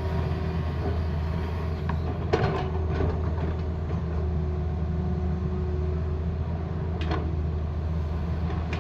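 Tata Hitachi excavator's diesel engine running steadily under work, with two short knocks, one a little after two seconds and one about seven seconds in.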